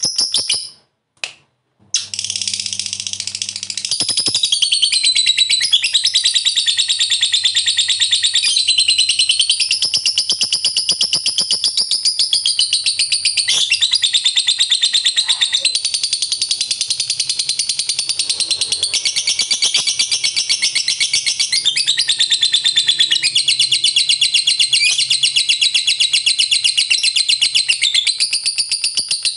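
Lovebird 'ngekek panjang': a long, rapid, unbroken high-pitched chattering trill, the sustained song prized in fighter lovebirds, breaking off briefly about a second in, then resuming and running on.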